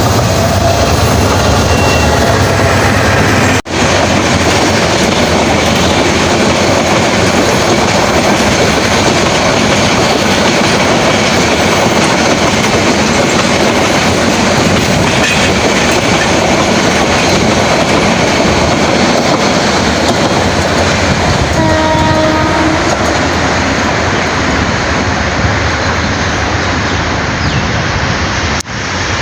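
Brahmaputra Express intercity train running past at close range, a loud steady rumble with wheel clickety-clack. A short horn tone sounds about two-thirds of the way through, and the sound cuts out briefly twice.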